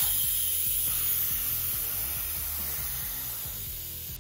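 Air hissing out of a motorcycle tyre's valve stem with the valve core removed: the tyre deflating so the bead can be broken. The hiss fades steadily as the pressure drops.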